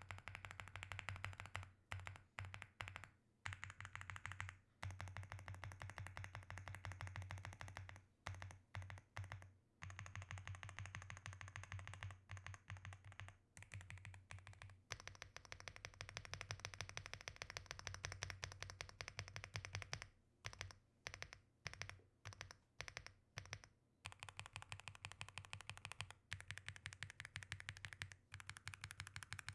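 Fast typing on an Aula F75 gasket-mount mechanical keyboard with stock LEOBOG Reaper linear switches: a rapid, dense run of keystrokes broken by several brief pauses.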